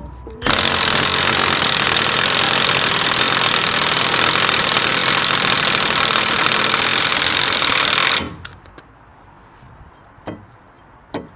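Impact wrench hammering steadily on a 30 mm nut for about eight seconds and then stopping, loosening a nut that has been on a long time. A couple of light clicks follow.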